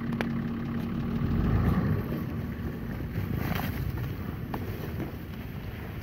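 A 4x4 off-roader's engine running under load as it forces its way through deep snow, loudest about a second and a half in and then slowly fading as it moves off. A few short sharp cracks and rustles come from snow-laden branches scraping along the body.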